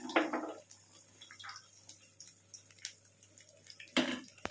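Green peas and a chilli tipped into a kadhai of hot oil, landing with a short burst and then faint scattered ticks. A steel spatula knocks sharply against the pan about four seconds in.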